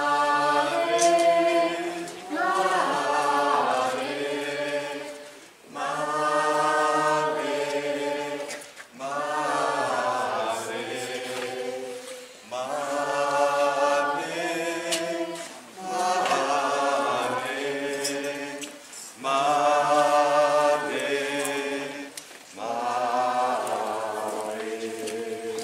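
A group of voices singing a religious chant together in unison, in short phrases of held notes with brief pauses between them.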